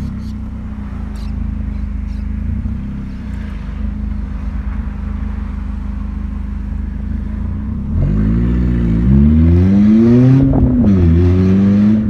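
Chevrolet Corsa's engine droning steadily at low revs while cruising. About eight seconds in it gets louder as it is accelerated, its pitch rising and falling several times with the revs.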